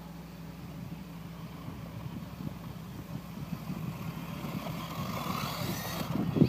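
Traxxas 1/16 Slash VXL RC truck's brushless electric motor whining, along with its tyres running over the ground, growing louder toward the end as the truck comes closer.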